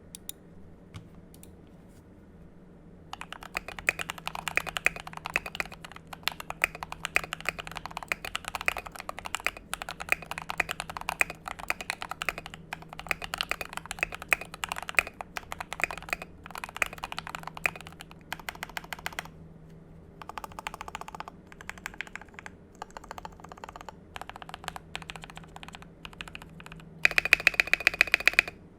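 Typing on a CIY Tester 68 mechanical keyboard. Fast, steady keystrokes start about three seconds in and thin out into sparser clicks after about twenty seconds, then a loud rapid flurry of keystrokes comes near the end.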